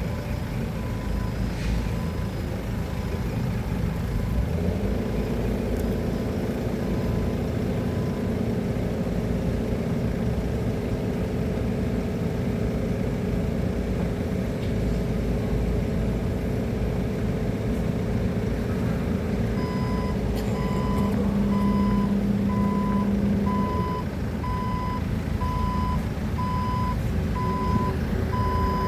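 Forklift running with its reversing alarm beeping at an even pace, faintly at first and loudly from about two-thirds of the way through. Under it the engine rumbles throughout, with a steady higher hum joining about five seconds in and dropping away a few seconds before the end.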